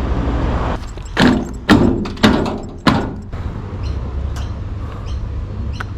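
Four hard knocks and clunks about half a second apart, from parts of a washing machine being handled during dismantling, followed by a few faint clicks.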